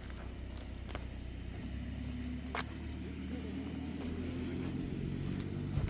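A heavy vehicle's diesel engine running steadily, its note shifting a little a couple of seconds in and again near the end. A couple of sharp clicks sound over it.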